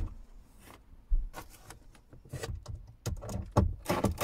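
Irregular knocks, taps and rustling from hands working on a wooden ceiling frame overhead while cladding is fitted. The sharpest knock comes about a second in, with a quicker run of taps and clatter near the end.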